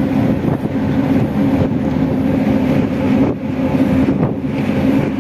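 Diesel engine of a river tour boat running steadily, a constant hum over a rushing noise.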